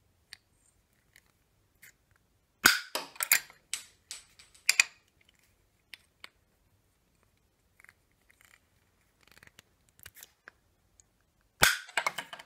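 Hand-held plastic pipe cutter's blade snapping through 15 mm plastic push-fit pipe twice, about three seconds in and near the end, each cut a sharp snap followed by a quick run of clicks. Light clicks of the cutter handle in between.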